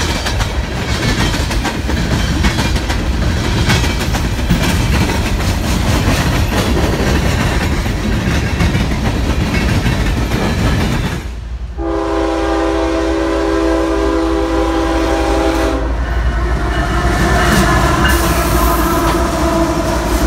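A CSX freight train's open-top hopper cars rolling past, wheels clattering over the rail joints. About a dozen seconds in, a diesel locomotive's air horn sounds a chord of several steady tones for about four seconds, then the rumble of a passing train returns.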